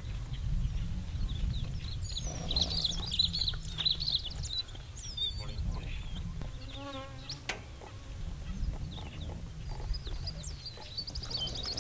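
African wild dog pups twittering and squeaking, with many short high chirps between about two and six seconds in and a wavering whine about seven seconds in. A steady low rumble runs underneath, and a fast high trill comes near the end.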